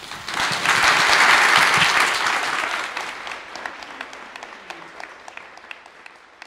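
Audience applauding, swelling to full within the first second, then thinning into scattered claps and fading out.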